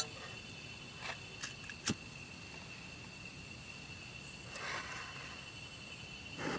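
Forest insects keeping up a steady high-pitched chirring, with a few light clicks and knocks in the first two seconds and a soft rustle about five seconds in.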